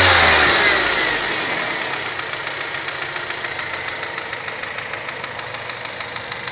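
Car engine dropping back from a rev to idle, then idling with a rapid, even clicking of about five ticks a second. The clicking comes only once the engine is warm and is absent from cold; its cause is unknown to the owner.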